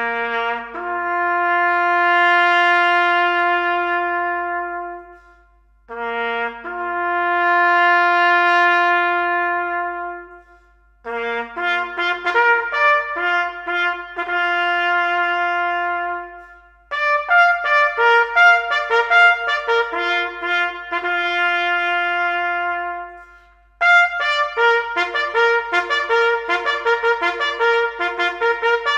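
Solo trumpet playing a slow bugle-call melody. Long held notes come in two matching phrases with pauses between them, then quicker strings of notes follow from about eleven seconds in.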